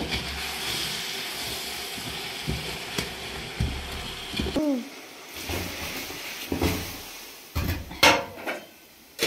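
Food frying in a pan with a steady sizzle while it is stirred with a metal utensil. About halfway through, the sizzle falls away and metal pot-and-utensil clinks and knocks follow, the loudest near the end.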